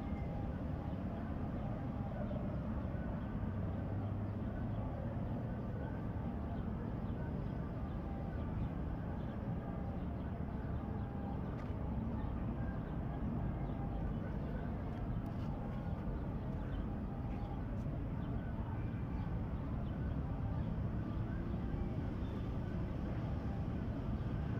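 Steady low background rumble with faint, scattered higher sounds over it and no distinct event.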